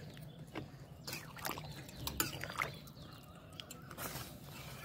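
Curry of jackfruit and goat fat simmering in a wide metal pan over a charcoal fire: scattered small bubbling pops and drips.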